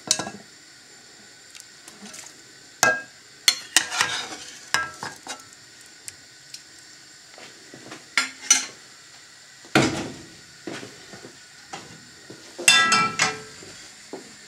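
Metal spoon clinking and knocking against a cooking pot and a glass bowl as boiled broccoli is spooned into cold water: scattered sharp clinks, with a longer ringing clatter near the end.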